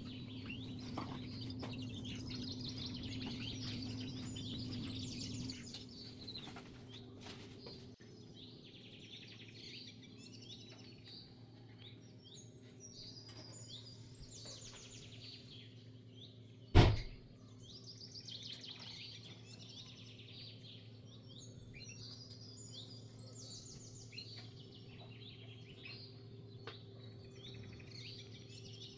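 Small birds chirping and twittering throughout. A steady low hum runs for the first five seconds or so, and a single loud knock comes about 17 seconds in.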